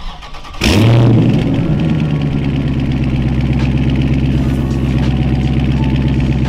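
Dodge Charger Scat Pack's 6.4-litre Hemi V8 firing up about half a second in with a brief loud flare, then settling into a steady idle.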